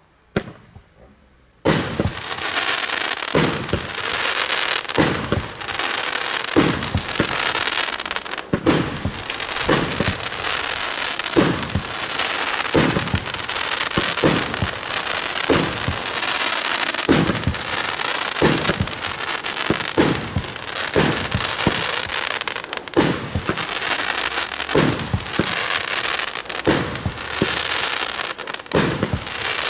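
A 49-shot, 30 mm consumer fireworks cake firing. It starts about two seconds in, with a launch thump roughly every second and a half over a steady hiss of burning gold-rain effects.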